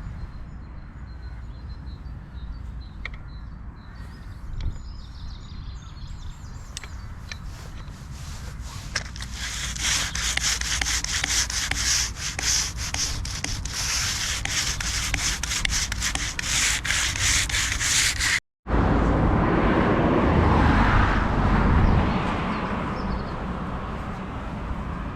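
Hand sanding of the damaged town sign during its restoration: rapid, regular rasping strokes, loudest through the middle of the stretch. After a cut, a denser, lower rubbing noise follows.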